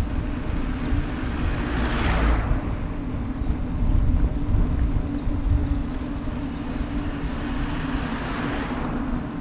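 Steady road and wind noise from riding a bicycle through city traffic, with a low rumble and a steady hum underneath. A louder swell of hiss rises and fades about two seconds in, and again near the end.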